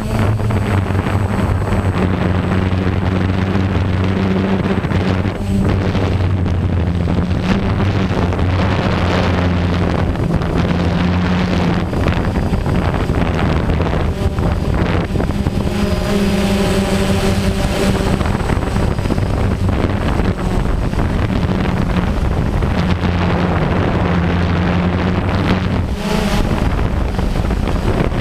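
DJI Phantom quadcopter's four electric motors and propellers droning steadily, heard close up from the GoPro mounted on the drone, the pitch shifting slightly now and then as it manoeuvres. Wind rushes over the microphone throughout.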